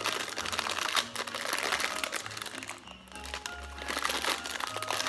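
A plastic rice cake bag crinkling as it is pulled open and handled, over background music of held notes that change pitch every second or so.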